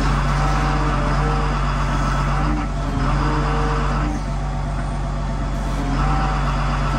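Cat 930H wheel loader's diesel engine running steadily, with a hydraulic whine that comes and goes several times as the fork arm lifts a bundle of scrap steel bands.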